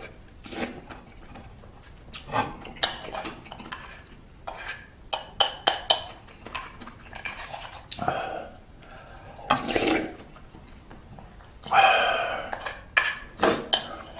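Eating utensils clinking and scraping against a ttukbaegi earthenware pot, in many sharp, irregular clicks with a few longer scraping stretches.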